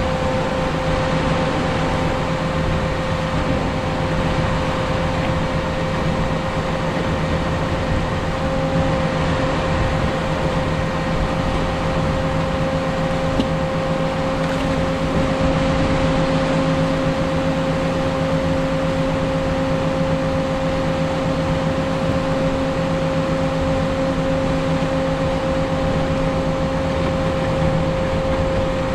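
Caterpillar 140M3 motor grader running steadily while blading a gravel road: an even diesel drone with a steady higher whine, over the rushing noise of the moldboard scraping gravel.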